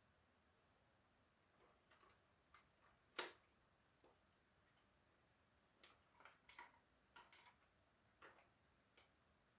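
Faint, irregular clicks and taps of small hard parts being handled. The sharpest click comes about three seconds in, with a quick run of them near the end.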